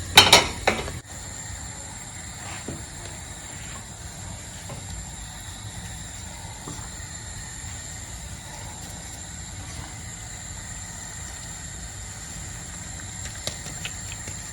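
A quick clatter of knocks in the first second, like a bowl or utensil being handled, then a steady low hum with a thin high whine over it and a few soft taps.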